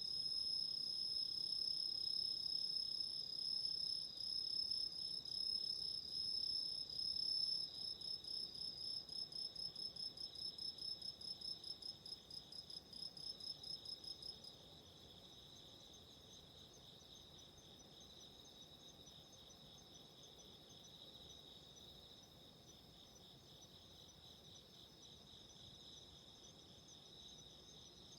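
Autumn insects singing. A loud, high, steady trill breaks into rapid pulses about a third of the way in, then stops about halfway through, leaving a fainter, steady insect chorus.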